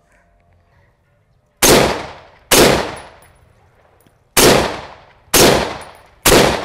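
Chinese Type 56 SKS semi-automatic rifle in 7.62×39 mm firing single aimed shots: five shots in all, two about a second apart, a pause of about two seconds, then three more about a second apart. Each shot has a short echoing tail.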